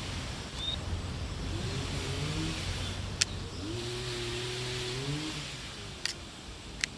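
A car engine running in the background: its pitch rises, holds, then falls away over a steady low hum. Three sharp clicks cut in, one about three seconds in and two near the end.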